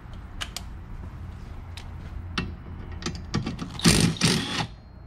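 A few light clicks of a socket being handled, then a cordless driver with a 14 mm socket runs in two short bursts near the end, spinning off the nut that holds a windshield wiper arm.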